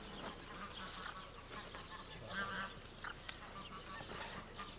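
Waterfowl calling on the water, with one short call about halfway through, faint against quiet outdoor background.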